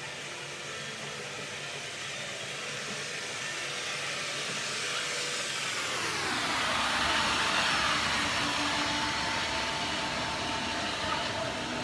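Commercial floor scrubber machine running with a steady whirring hum. It grows louder as it comes up and passes close by, and its pitch drops as it goes past about six seconds in.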